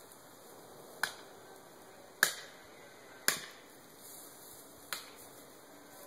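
Four sharp knocks of a hand tool striking wood at the base of a tree being felled, a second or so apart, with no chainsaw running.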